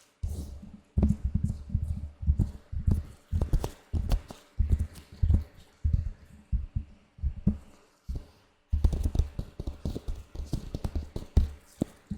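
Latex-gloved hands rubbing and handling, making a dense, irregular run of quick crinkly rustles and soft thuds, with a short pause about two-thirds of the way through.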